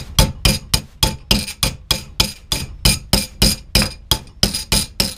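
Hammer tapping a strip of scrap aluminum clamped in a bench vise, bending it over: rapid, even strikes, about four to five a second, each with a bright metallic ring.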